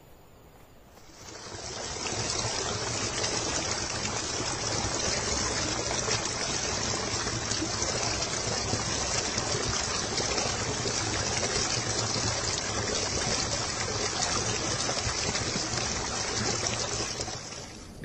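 Water falling and splashing into a pool: a steady rush of running water that fades in over the first two seconds and drops away shortly before the end.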